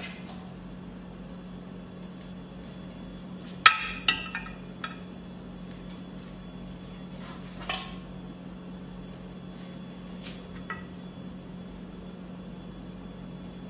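Metal serving utensil clinking against an ovenproof baking dish as pieces of cooked meat are laid into it: a sharp clink about four seconds in with two lighter ones just after, then single clinks near eight and eleven seconds. A steady low hum runs underneath.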